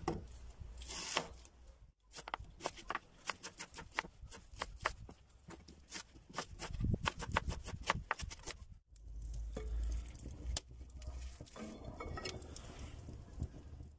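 Kitchen knife dicing an onion on a wooden cutting board: a quick run of sharp taps of the blade on the board, ending a little past halfway through. After that comes a low rumble and then quieter, hazy noise.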